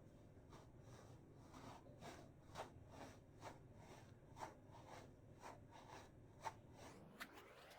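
Faint soft crackles and rubbing, one or two a second, from a banana squishy toy being squeezed and handled. Near the end a rising tone with several harmonics sweeps up and holds.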